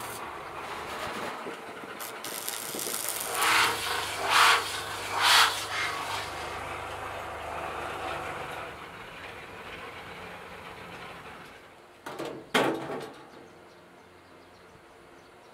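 Electric arc welding on a steel wheelbarrow frame: a steady crackling hiss over a low hum, with three louder short bursts about four to five seconds in. About twelve seconds in, a sharp metal knock, and then it goes much quieter.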